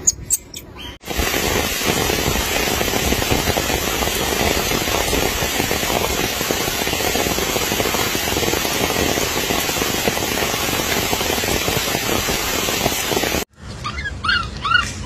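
Steady hiss of rain for most of the time, cutting off suddenly near the end. It is followed by a baby macaque's repeated short, high squeals that rise and fall.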